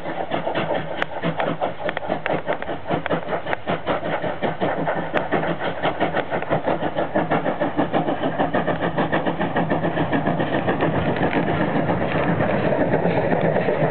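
LNWR G2 'Super D' 0-8-0 steam locomotive working hard as it pulls away with a train, a steady rhythm of exhaust beats that grows louder as it draws near and passes.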